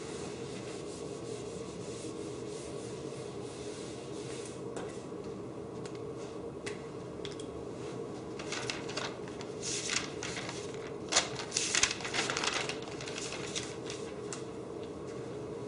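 Whiteboard eraser rubbing across a whiteboard, with a louder run of scuffing, rubbing strokes about two-thirds of the way in, over a steady room hum.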